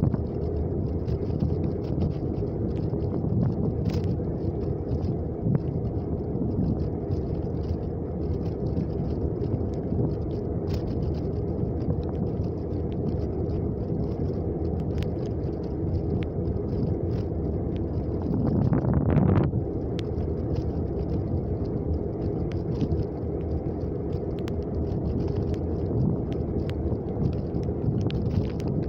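Steady low rumble of a car's engine and tyres on asphalt, heard from inside the moving car, with faint scattered ticks. A brief louder swell comes about two-thirds of the way through.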